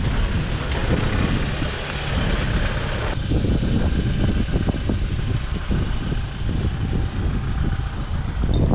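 Toyota Hilux 2.8 D4D ute driving on a dirt track, heard from outside the body: a steady low rumble of tyres and running gear. The hiss over it thins out about three seconds in.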